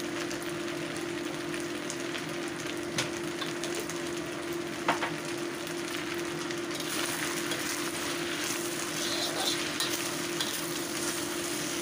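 Flat rice noodles and vegetables sizzling in a black steel wok while a metal spatula stirs and tosses them, with a few sharp clinks of the spatula on the wok. The sizzle turns brighter and busier about seven seconds in as the noodles are tossed harder. A steady low hum runs underneath.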